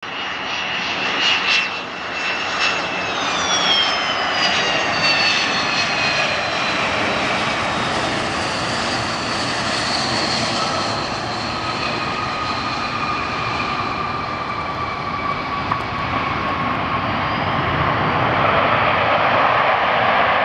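Boeing 737-200's Pratt & Whitney JT8D turbofan engines on landing: a high whine falling in pitch over the first several seconds over a steady rush of engine noise. The engine noise carries on through touchdown and rollout with the thrust reversers deployed, growing a little louder near the end.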